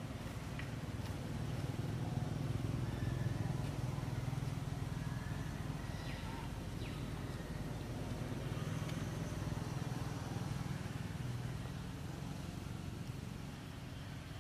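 Steady low outdoor rumble, swelling a couple of seconds in and easing off toward the end, with a few faint short high chirps over it.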